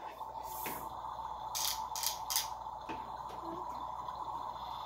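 Electronic sound effect from a Step2 toy kitchen's speaker: a steady hum with four short crackly hits over it in the first half.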